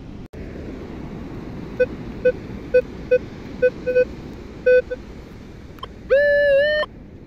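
Minelab Vanquish 440 metal detector giving short target beeps, about eight in three seconds, as its coil is swept over beach sand. Near the end it gives one longer, louder tone that wavers slightly in pitch. A steady rush runs underneath.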